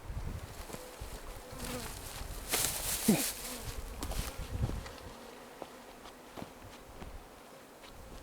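Honeybees buzzing in the air around the microphone. About three seconds in, one loud buzz falls in pitch.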